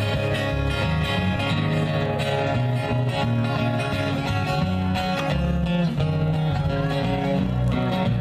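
Live acoustic guitar strumming over a moving bass line: an instrumental passage of a song, with no singing.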